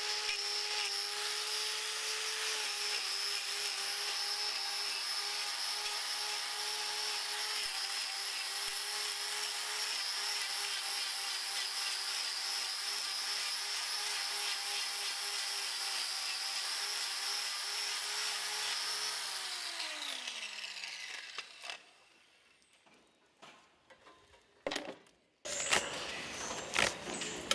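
Electric angle grinder with a hoof-trimming disc running with a steady whine while trimming a cow's claw. About 20 seconds in it is switched off and winds down, its pitch falling to a stop. A few faint knocks follow.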